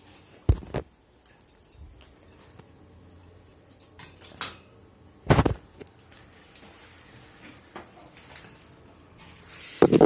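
A few sharp knocks and clatters of a wire bird cage being handled, the loudest about five seconds in, with a short rustling burst near the end.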